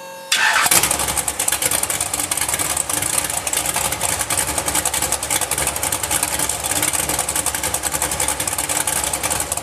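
Stockcar F1 race car engines running together, a loud, dense engine noise with a fast crackle. It comes in sharply after a brief, quieter steady tone at the very start.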